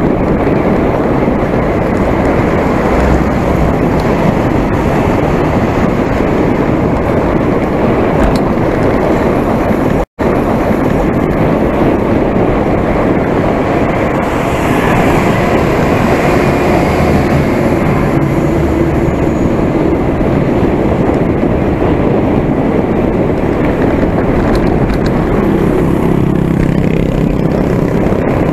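Steady wind rushing over the camera microphone on a moving bicycle, with the sound cutting out for an instant about ten seconds in. Near the end a motor-vehicle engine hum joins the wind.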